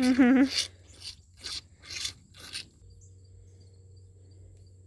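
A short, loud, wavering call at the very start. Then four rasping rubs about half a second apart, and after them crickets chirping steadily and faintly.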